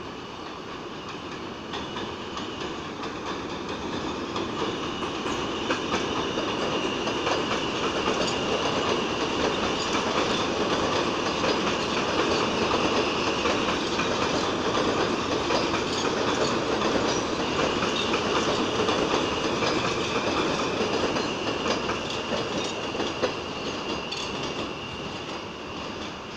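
An R160 New York City subway train running along elevated track, its wheels clacking over the rail joints with a steady high whine. It grows louder over the first several seconds, stays loud as it passes, then fades away near the end.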